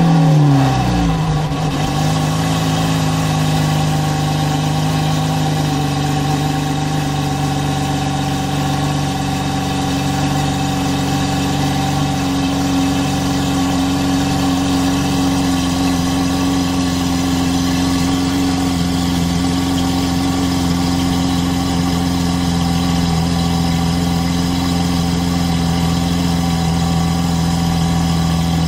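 Lamborghini Aventador Hamann Nervudo Roadster's 6.5-litre V12 just after start-up, its revs falling in the first second or so and then settling into a steady idle.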